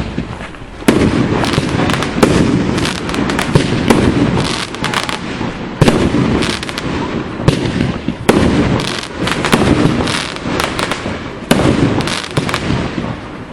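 Fireworks display going off in a dense barrage: many sharp bangs and crackles one after another, with booming rumble between them and a short lull about a second in.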